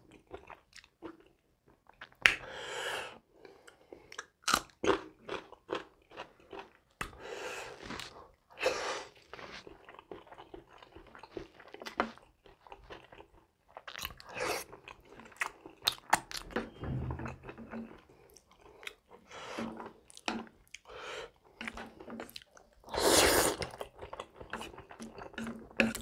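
A person eating grilled fish and spaghetti, chewing with irregular crunches and many short wet mouth clicks. There is a louder, longer burst of mouth noise near the end.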